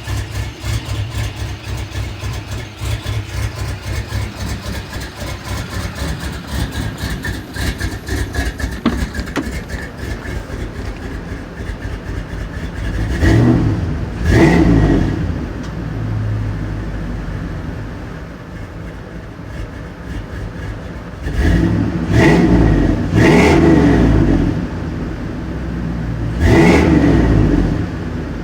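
Chevrolet Suburban's 5.3-litre LS V8 idling roughly with an uneven, pulsing beat, then blipped through short revs twice about halfway in and a few more times near the end. The rough idle is an intermittent fault that new intake gaskets, knock sensors, throttle body, intake and MAF did not cure; the owner suspects dirty injectors or fuel.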